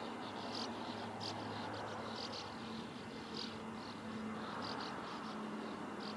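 Faint outdoor ambience: insects chirping in short, irregular chirps over a steady low hum.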